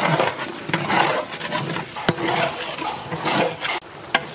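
Long metal ladle stirring and scraping through a thick, wet vegetable masala in a large cooking pot, squelching and scraping irregularly, with a sharp clank of metal on the pot about two seconds in and another near the end.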